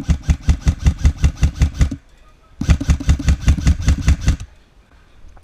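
Lancer Tactical LT-25 Gen 2 airsoft electric rifle firing two long strings of rapid shots, about eight a second, with a half-second pause between them.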